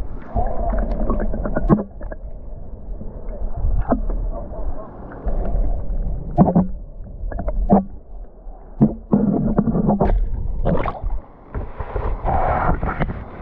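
Low rumble of a moving tour vehicle, with frequent knocks and jolts and wind buffeting the microphone.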